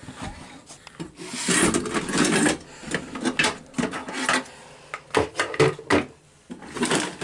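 Rustling and rubbing of a handheld phone against clothing, then a series of knocks and clicks as small items are handled and set down on a stand.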